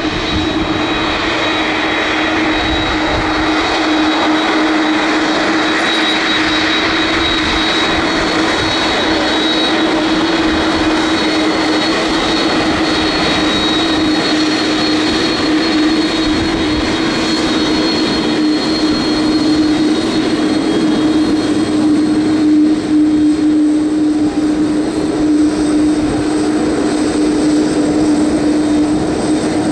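McDonnell Douglas MD-11 freighter's three jet engines running at low taxi thrust: a steady drone over a rushing noise, with a high whine that fades about two-thirds of the way through.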